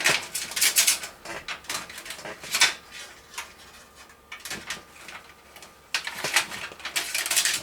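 Fan cables being worked through a hole in a PC case: irregular rustling, scraping and light clicks of handling, busier near the end.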